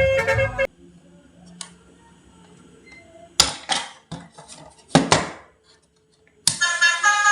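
Hard toy parts clattering and rattling as a toy is handled: a faint click about one and a half seconds in, then two loud clusters of clatter about three and a half and five seconds in. Background music stops within the first second and starts again near the end.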